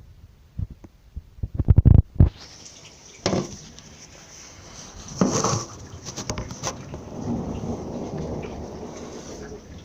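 Thunderstorm: a burst of sharp cracking thunder about two seconds in, further claps a few seconds later, then a long low rolling rumble over steady rain hiss.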